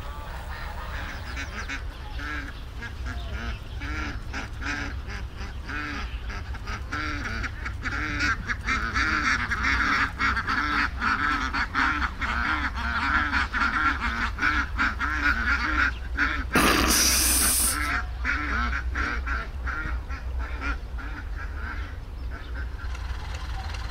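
A flock of geese honking in a rapid, repeated chorus that grows louder and denser through the middle, over a steady low rumble. A brief loud rush of noise comes about two-thirds of the way through.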